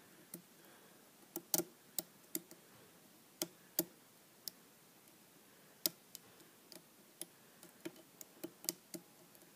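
Lock pick and tension wrench working the pins of a pin-tumbler lock cylinder: about twenty light, irregular clicks as the pick lifts pins and they set or drop. The core sits in a slight false set and keeps giving counter-rotation, which the picker puts down to a spool pin.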